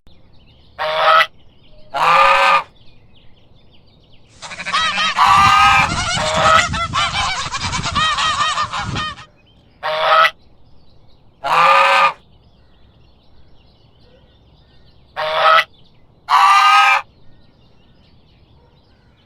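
Geese honking: short honks in pairs, spaced a few seconds apart, and around the middle a flock honking all together for about five seconds.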